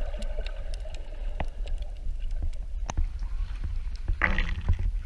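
Water heard from below the surface while swimming: a low, steady rumble of moving water with scattered clicks. About four seconds in comes a splash and slosh as the surface is broken at the waterline.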